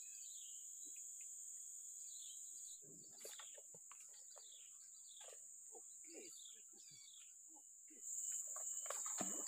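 Steady high-pitched drone of insects, which gets louder about eight seconds in, with short chirping calls scattered over it.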